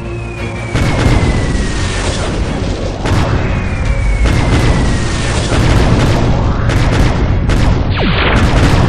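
Edited-in action sound effects: loud booms like explosions with sudden hits about a second in and again about three seconds in, two slowly falling tones in the first half and a steeply falling tone near the end, over music.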